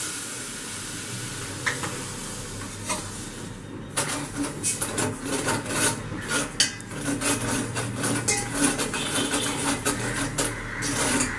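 A steady hiss for about the first four seconds, then a metal spoon stirring sugar and water in a steel saucepan, with rapid scraping and clinking against the pan.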